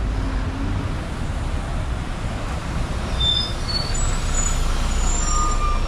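Double-decker sightseeing bus running with a steady low engine rumble. About halfway through come several short high squeals, then a steady high whine near the end.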